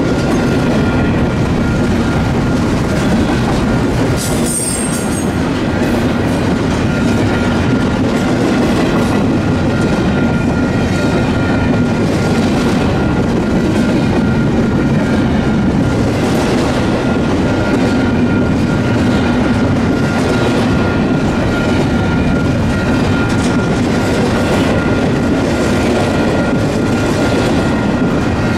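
Double-stack container freight train rolling past close by: a steady loud rumble of the well cars, with wheels clacking over rail joints. A thin steady high whine runs under it, and a brief high squeal comes about four seconds in.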